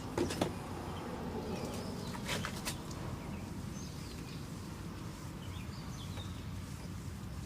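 Outdoor ambience: a steady low rumble with faint bird chirps, and a few sharp clicks in the first three seconds.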